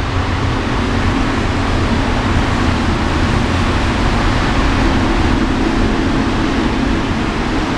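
Airbus A380-841 with four Rolls-Royce Trent 970 turbofans passing on its landing approach: a steady rushing jet noise with a low hum that swells a little midway.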